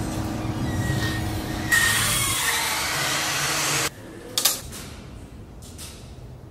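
A loud, steady rushing noise that cuts off abruptly about four seconds in, followed by a single sharp click of a circuit breaker being switched on. Fainter ticks follow.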